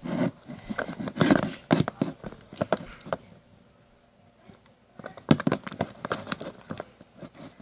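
Popsicle stick stirring a glue-and-lotion slime mixture in a bowl: irregular wet clicks and scrapes, stopping for about two seconds midway.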